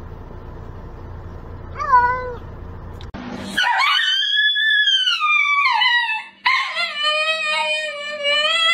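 A cat gives one short meow about two seconds in. After a cut, a dog howls in two long, wavering howls. The first is high and falls in pitch. The second is lower and held, dropping at its end.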